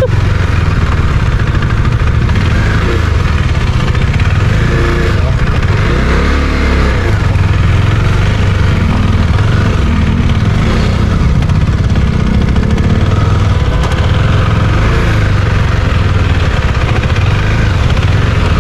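Husqvarna Svartpilen 401's single-cylinder engine running under throttle while the motorcycle is ridden on dirt, with a heavy constant low rumble. The revs rise and fall a few times.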